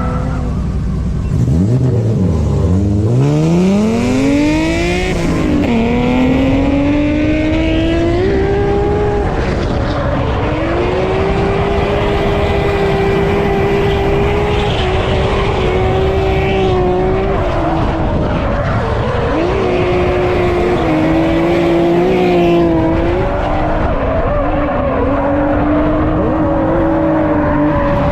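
Car engine at high revs: it accelerates hard with a sharply rising pitch about two seconds in, then runs high and fairly steady, with brief dips and steps in pitch as the throttle changes.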